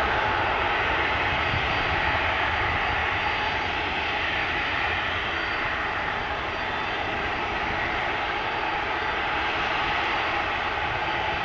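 Boeing 787-9 twin-engine jet airliner on final approach, its engines giving a steady rushing drone with a faint high whine above it.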